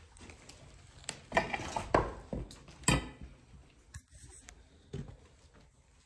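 Hard loose debris clattering and clinking, a cluster of knocks and clinks about one to three seconds in, then a few fainter taps.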